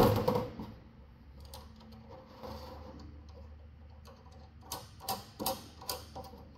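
A small steel bolt and nut clicking against the metal frame rail as the nut is threaded on by hand, with a handful of sharp ticks about five seconds in.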